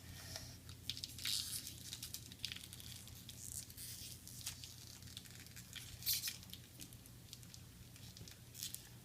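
Plastic candy packaging crinkling and crackling in irregular bursts as it is handled and pulled at.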